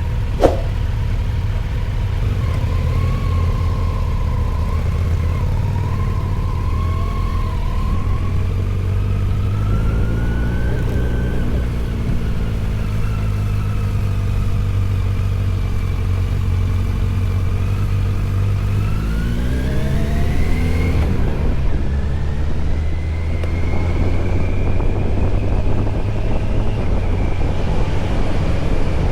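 Kawasaki Z900 SE's inline-four engine through an SC-Project CR-T aftermarket exhaust, under way on the road, its pitch rising and falling with the throttle. About two-thirds through the engine climbs steadily, drops suddenly as it shifts gear, then climbs again. A single sharp click sounds about half a second in.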